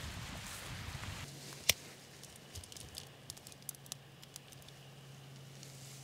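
Outdoor stream-and-wind noise, then a sharp lighter click about 1.7 s in as a small camp burner is lit, followed by a scatter of faint ticks over the next few seconds.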